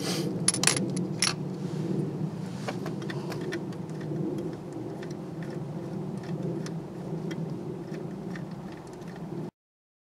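Light metallic clinks and rattles of hand tools and fasteners as a new ignition coil pack is fitted onto its studs, over a steady low hum. All sound cuts off suddenly near the end.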